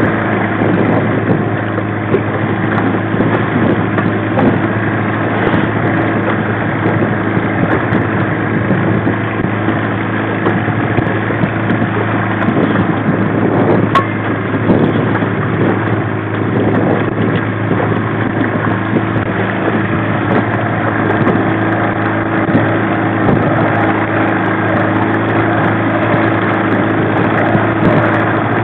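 1995 Mariner 15 hp two-stroke outboard running steadily at slow trolling speed, an even drone that holds the same pitch throughout. A single light click sounds about halfway through.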